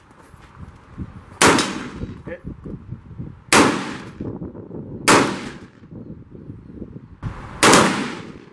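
AR-15-style rifle fired four times as slow, aimed single shots, each a sharp crack followed by a short echo, with pauses of about one and a half to two and a half seconds between them.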